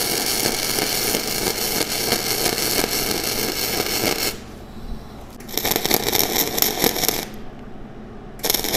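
Flux-core MIG welding arc sizzling steadily, a bead running smooth with the wire speed perhaps a little fast; it stops about four seconds in. After a pause, a choppier crackling, popping arc starts and stops in short runs: wire speed too high and volts too low, the wire just popping and hitting without burning in.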